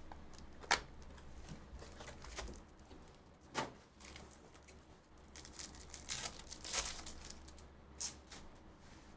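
Trading-card pack wrappers being torn open and crinkled as cards are handled, with a few sharp taps scattered through.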